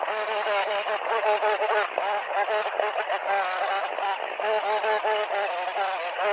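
Chainsaw cutting into a wooden log, its sound sped up with the time-lapse so the engine note wavers rapidly up and down.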